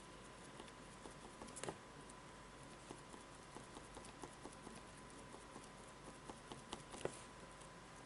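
Foam sponge dauber dabbing paint onto corrugated cardboard: faint, irregular soft taps, with two louder ones, about two seconds in and near the end, over a low hiss and a thin steady hum.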